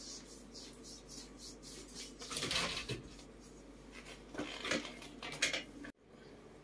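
Rustling and light knocking from monkeys moving about on a bed among soft toys, in a few short bursts over a steady low background; the sound cuts off suddenly near the end.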